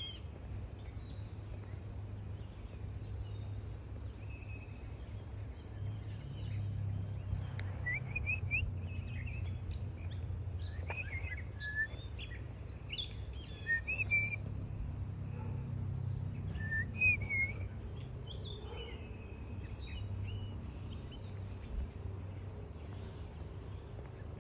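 Songbirds chirping and trilling in many short phrases, busiest in the middle, over a steady low rumble.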